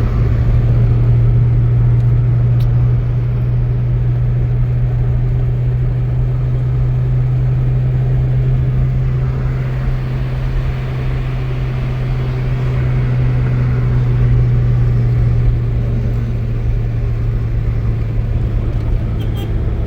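An engine running steadily with a low, even drone that holds level throughout.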